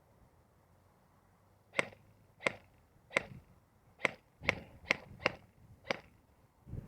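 Airsoft gun firing eight single semi-automatic shots, sharp pops spaced about half a second to a second apart, starting a couple of seconds in.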